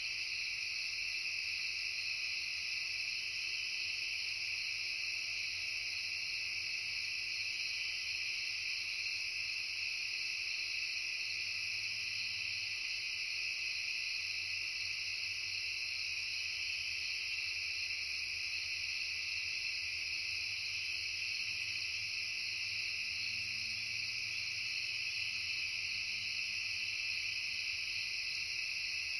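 Steady chorus of crickets trilling without a break, a high continuous shimmer.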